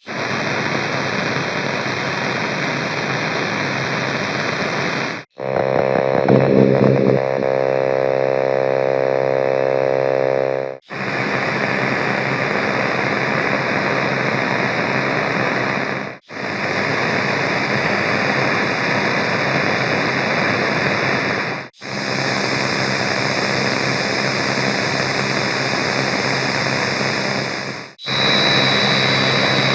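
Radio static and tuning noise: a run of separate hissing static clips, each about five seconds long, broken by brief silences. One clip has a buzzing hum under the hiss, and the last one carries a steady high whistle.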